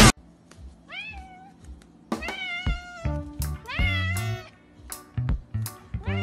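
A cat meowing repeatedly: four or five drawn-out meows about a second apart, each rising in pitch at the start.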